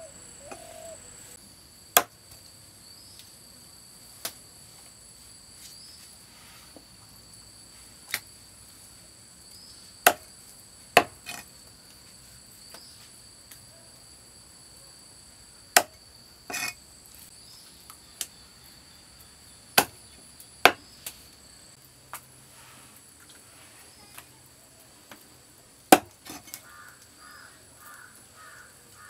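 Heavy steel cleaver chopping through fish onto a wooden log chopping block, one sharp chop every one to four seconds, about a dozen in all. A steady high-pitched insect drone, like crickets, runs underneath.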